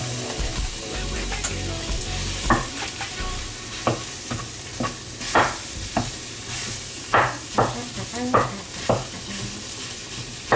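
Sausages and diced food sizzling in a nonstick frying pan while a wooden spoon stirs them, knocking and scraping against the pan about every second, more often in the second half.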